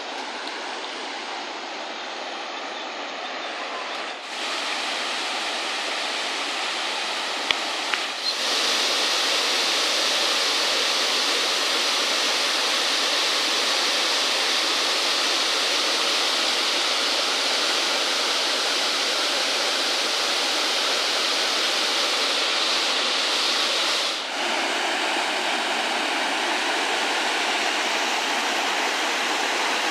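Rushing river water, a steady hiss of rapids or falls that changes abruptly in level about four, eight and twenty-four seconds in, loudest after about eight seconds.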